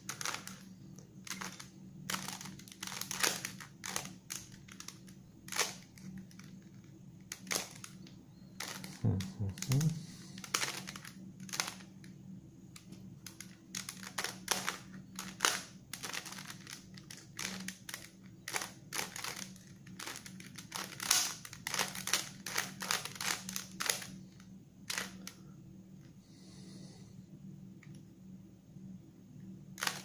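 Bandaged 3x3 Rubik's cube being turned by hand: rapid, irregular runs of plastic clicks and clacks as the layers are twisted, thinning out near the end.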